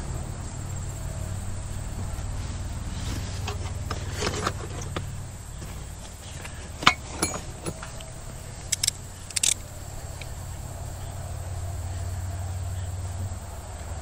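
Several sharp metallic clinks and clanks of hand tools being picked up and handled, spread through the middle with the loudest about halfway, over a steady low rumble and a faint high insect trill.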